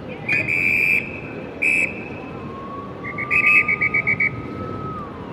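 Shrill whistle blown in blasts: one long blast, a short one, then a rapid trill of about eight short pips. A police siren rises slowly in the background and drops near the end, over steady street noise.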